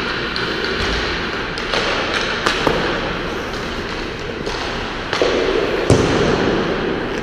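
Ice hockey practice on the rink: a steady scrape and hiss of skates on ice, broken by several sharp clacks of pucks against sticks and the boards, the loudest crack about six seconds in.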